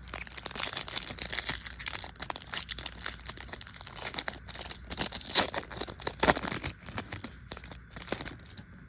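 A plastic trading-card pack wrapper being torn open and crinkled in the hands, with the cards handled, giving an irregular crackle of small snaps and rustles.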